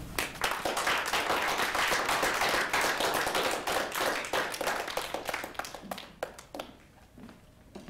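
Small audience applauding: a patter of hand claps that thins out to a few scattered claps and dies away about six to seven seconds in.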